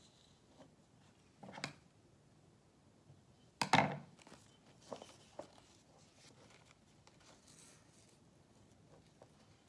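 Quiet handling of a glass jar and ribbon on a wooden table: a few light knocks, the loudest about four seconds in, followed by small clicks.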